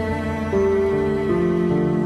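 Background music: slow, sad instrumental with sustained string-like notes.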